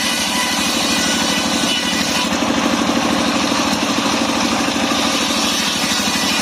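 Engine of a portable circular sawmill running steadily, with an even low pulse.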